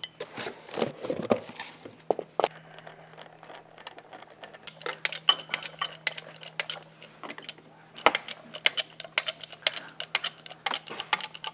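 A bottle jack being worked by hand under the tractor frame, making light metallic clinks and clicks that quicken into a dense, irregular run of clicks in the second half. A low steady hum sits underneath.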